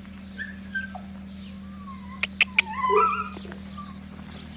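A dog whining in short, wavering high-pitched whimpers, with two sharp clicks a fraction of a second apart about halfway through, over a steady low hum.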